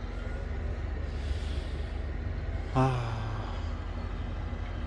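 Steady low rumble outdoors, with a breathy hiss and then a man's short wordless vocal sound about three seconds in.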